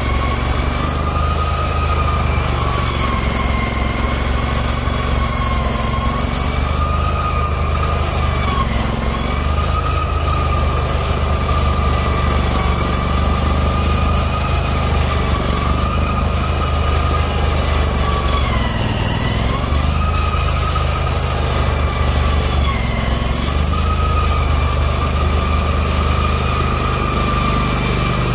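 A garden tractor's Kohler CH730 25 hp V-twin engine running under load, driving a front-mounted snowblower that is throwing snow from a deep drift. A steady whine rides over the engine's rumble and sags in pitch now and then, most deeply about nineteen seconds in.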